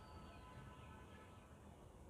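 Near silence: faint outdoor background, with a few faint, thin, high tones in the first second.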